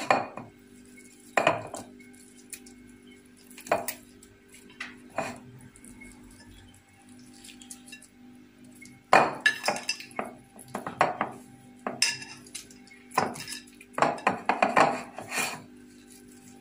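Hands stuffing a whole raw fish with chermoula herb marinade over a bowl: scattered clinks and light knocks against the dish, coming in small clusters about halfway through and again near the end, over a faint steady hum.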